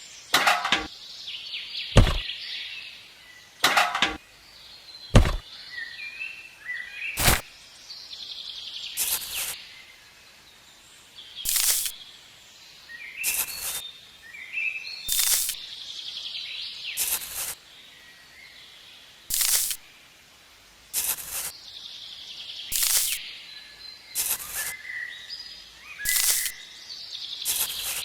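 Repeated sharp knocks or taps, roughly one every one to two seconds, with birds chirping in between.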